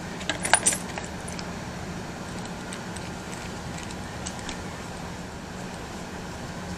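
A few light clicks and clinks of small parts being handled, about half a second in, as a servo and its mounting screw are fitted into an RC crawler chassis. After that only a steady low hum remains.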